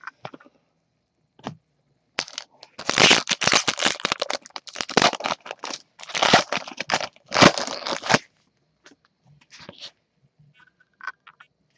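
A trading card pack wrapper being torn open and crinkled by hand. It is a dense run of crackling and crinkling that starts about two seconds in and stops abruptly about eight seconds in.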